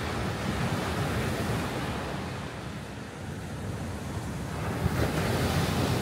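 Ocean surf: waves breaking and washing ashore in a continuous rush, swelling once near the start and again near the end.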